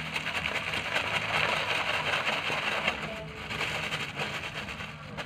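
Clear plastic bag crinkling and rustling quickly as it is shaken and squeezed to mix dry powdered bait inside; the rustling grows quieter about three seconds in.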